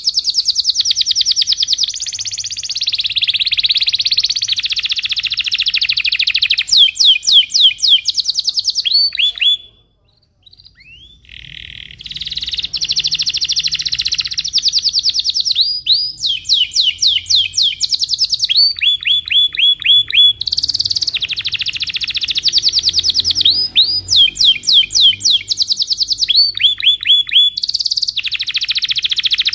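Domestic canary singing a long rolling song: fast trills of repeated high, falling notes run on with hardly a break. The song stops for about a second and a half near the middle, then resumes.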